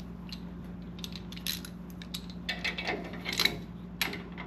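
Steel hand tools clinking as wrenches are handled and fitted to nuts and bolts: a scattering of light metallic clinks with brief ringing, busiest in the second half, over a steady low hum.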